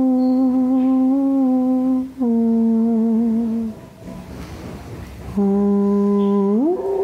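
A slow hummed melody of long held notes that step between pitches, broken in the middle by a pause of about a second and a half, then resuming on a low note that glides upward near the end.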